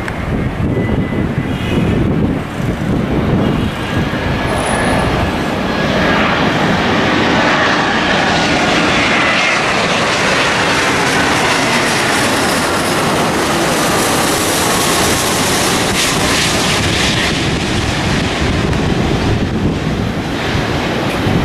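Jet engines of a Vietnam Airlines Airbus A350, Rolls-Royce Trent XWB turbofans, on final approach with the landing gear down, passing low overhead. The steady rush swells about six seconds in and stays loud, with a high whine that drops in pitch as the aircraft goes by.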